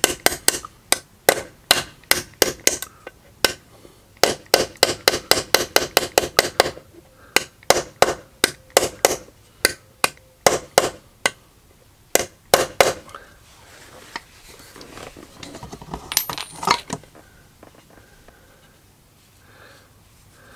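Hammer tapping on a 22 mm socket used as a drift, driving a new angular contact ball bearing into the clutch release (adjusting screw) plate of a Harley Sportster: quick, even taps, about three or four a second, for the first thirteen seconds or so, until the bearing is seated. A few ringing metallic clinks follow near sixteen seconds, then quiet handling of the parts.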